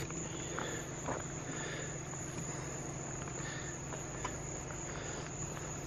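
Crickets and other night insects trilling steadily over a low steady hum, with a few faint ticks.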